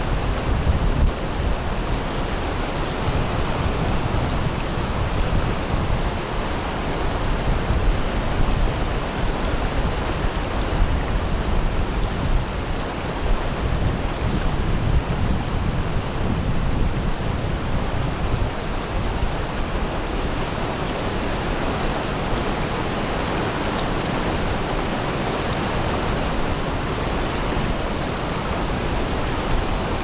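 Shallow mountain stream flowing over stones and rocks: a steady rush of running water.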